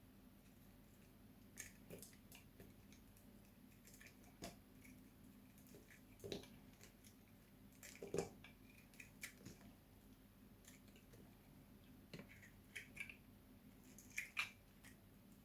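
A blade cutting into dry soap: scattered faint crisp crunches and clicks at irregular intervals, the loudest about eight seconds in and a quick cluster near the end.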